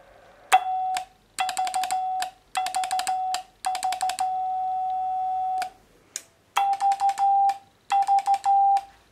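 Morse code tone from a keyed homebrew 40 m QRP CW transmitter: a steady mid-pitched beep switched on and off in groups of short dits and dahs, with one long key-down of about two seconds in the middle. The output meter reads the transmitted power as it keys.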